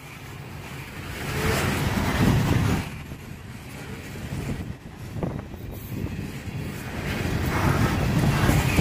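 Freight train of loaded-type coal gondola cars rolling past: steel wheels on rail making a steady rumble that swells about a second and a half in and again near the end, with a few sharp clacks of wheels over rail joints midway.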